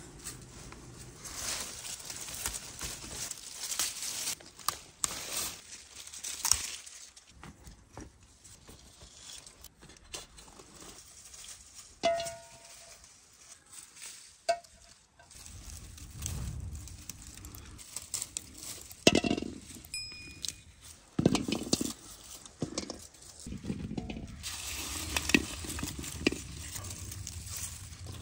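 Tomatoes being picked by hand: tomato plants rustling as the fruit is pulled off, with irregular knocks and clinks as tomatoes drop into a metal bowl.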